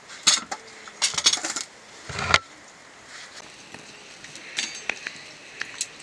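Metal cookware and utensils clattering and knocking as they are handled, with a heavier knock a little over two seconds in and a few lighter clicks near the end.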